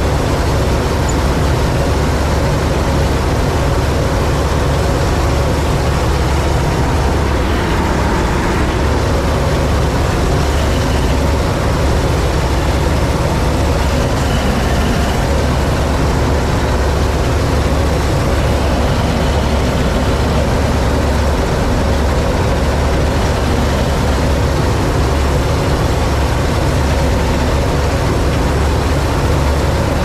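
Massey Ferguson 86 combine harvester running steadily under load while cutting wheat, heard from the driver's seat in the cab. Its engine and machinery make a continuous loud, low drone that does not change.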